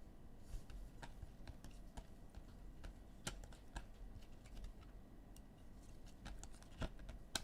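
Faint, irregular light clicks and taps, a few sharper ones among them, over a low steady hum.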